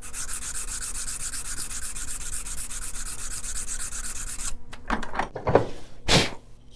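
220-grit sandpaper on a wooden sanding block rubbed back and forth flat across a wooden piece: a steady, fast stroking hiss that stops about four and a half seconds in. A few short, louder sounds follow near the end.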